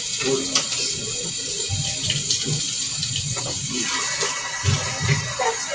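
Kitchen tap running, its stream splashing steadily into a stainless steel sink.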